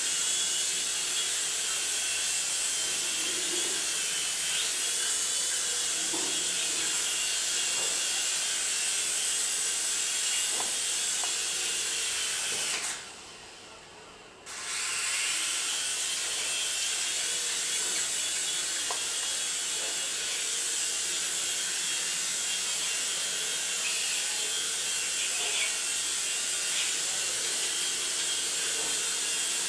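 A toy radio-controlled helicopter's small electric motor and rotors whir steadily at a high pitch. About thirteen seconds in the whir cuts out for under two seconds as the helicopter sets down, then starts up again.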